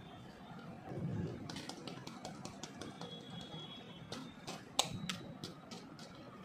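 Plastic Gems Surprise toy ball being turned and handled in the hands, its shell giving a run of irregular small clicks and taps, with one sharper click about three-quarters of the way through.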